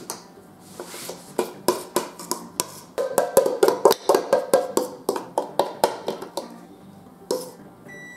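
A metal spoon knocking and scraping against a stainless steel mixing bowl, about three strikes a second with a ringing tone, as thick cornbread batter is worked out into a glass baking dish. Near the end a kitchen oven gives one steady high beep, signalling it has preheated to 400.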